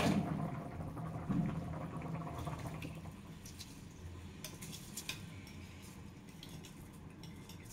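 Water and potatoes boiling in an electric cooking pot, a steady bubbling that slowly fades. A few faint light clicks in the second half come as a metal spoon pushes rice off a plate into the pot.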